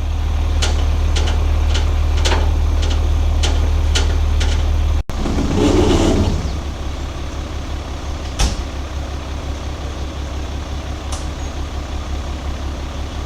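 Flatbed lumber delivery truck's engine running steadily with a deep hum, with light clicks every half second or so over the first few seconds, a short louder rush around six seconds in and one sharp knock near the middle.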